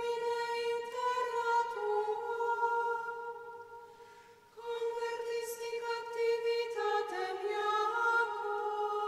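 Mixed choir of women's and men's voices singing a liturgical chant a cappella in long held chords. The phrase dies away about four seconds in, and a new phrase starts at about four and a half seconds.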